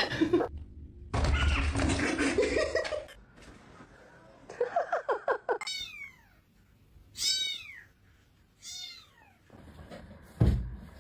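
Domestic cat meowing three times, each call falling in pitch, about a second and a half apart, just after a quick stuttering run of sounds. A loud, noisy stretch comes first, and there is a sharp thump near the end.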